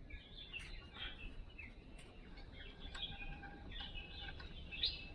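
Small birds chirping faintly and repeatedly in the background, over a low steady rumble of background noise.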